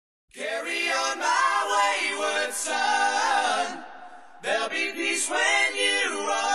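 Music of voices singing a cappella, in two phrases with a short break about four seconds in.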